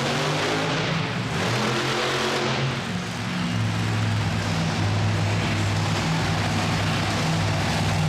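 A large vehicle engine running at a steady speed, its pitch stepping up and down a few times, over a constant background hiss.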